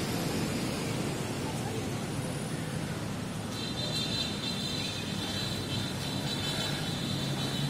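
Road traffic running steadily alongside: a continuous hum of car engines and tyres. About halfway through, a high-pitched whine joins in and holds.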